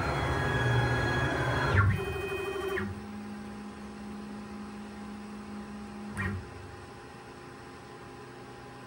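A DIY CNC router's axis drive motors moving the automatic tool-change spindle, a steady multi-tone whine that stops about two seconds in. A shorter move follows, then a lower steady hum that ends with a single click about six seconds in, leaving a quieter machine hum.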